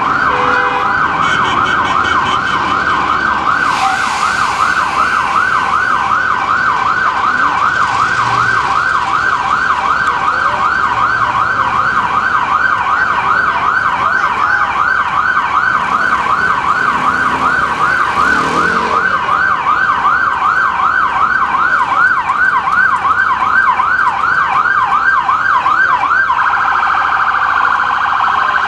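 Ambulance's electronic siren in yelp mode: a fast wail sweeping up and down a few times a second, switching to an even faster warble near the end.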